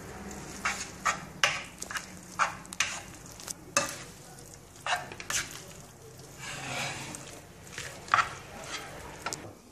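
Kitchen tongs stirring and tossing sauce-coated spaghetti in a non-stick frying pan, with irregular clicks and knocks of the tongs against the pan about twice a second.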